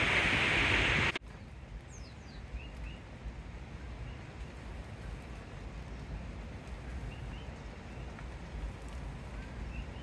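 Akaka Falls, a tall waterfall, gives a loud steady roar that cuts off abruptly about a second in. It gives way to a much quieter rainforest background with a low rumble and a few short bird chirps.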